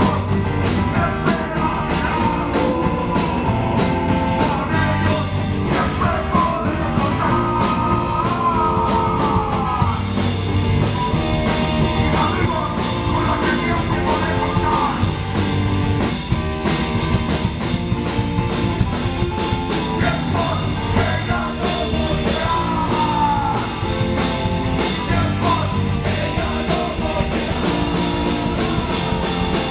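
Live rock band playing: electric guitar, bass guitar and drum kit, with a man singing into a microphone. Separate cymbal strokes give way to a continuous cymbal wash about ten seconds in.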